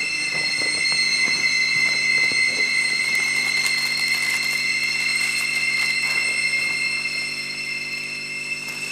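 Background score of steady held high tones over a low drone, with faint rustling and clicks of a handbag being searched a few seconds in.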